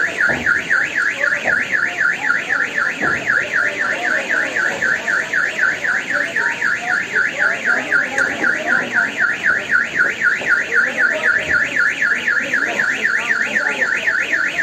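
Electronic alarm warbling: one high tone sweeping rapidly up and down, about four times a second, without a break, over faint background noise.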